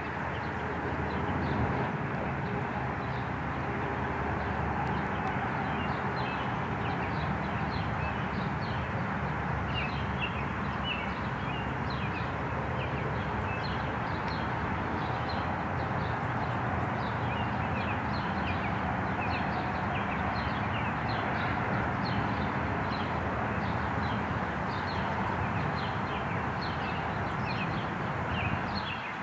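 Small birds chirping over and over, short high notes, over a steady low background rumble.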